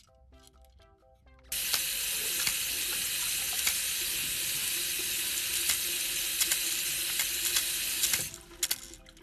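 Running tap water: a steady rush of water that starts suddenly about a second and a half in and stops abruptly near the end, over a faint background tune.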